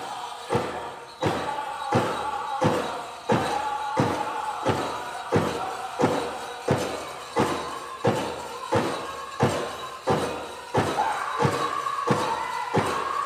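Powwow drum group performing a prairie chicken dance song: a large drum struck in a steady beat about one and a half times a second, with the singers' high voices held over it.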